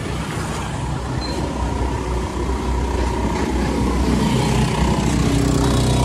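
Motor scooters riding past on a busy street, their small engines running, over general traffic noise; the engine sound grows somewhat louder toward the end.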